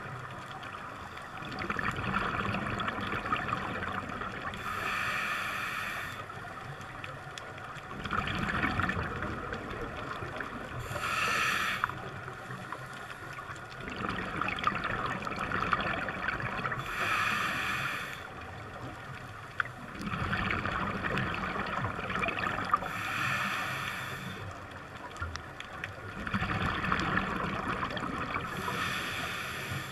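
Scuba diver breathing through a regulator underwater: a short sharp hiss of each inhalation, then the bubbling rumble of the exhalation, repeating about every six seconds.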